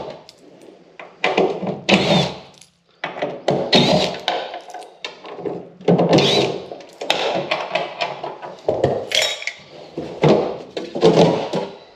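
Plastic tailgate trim being handled: an irregular string of knocks, clunks and rattles as the cap and insert pieces are lifted off and set down.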